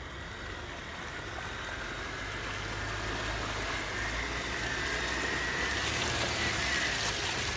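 VW Passat B5 4motion driving slowly on a muddy track: a low engine hum with a steady hiss, growing gradually louder.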